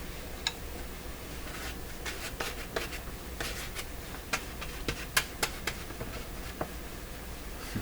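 Hands pressing and smoothing a glued paper patch onto a paper speaker cone: soft paper rustling and rubbing with scattered small, sharp clicks and taps, the loudest about five seconds in.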